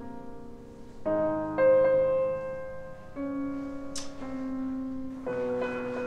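Slow, soft piano music: held notes and chords that change every second or so.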